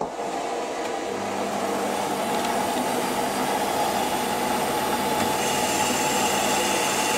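Warco metalworking lathe running steadily, its spindle turning a round bar in the chuck. A higher-pitched note joins about five and a half seconds in, as the tool meets the end of the bar to face it off.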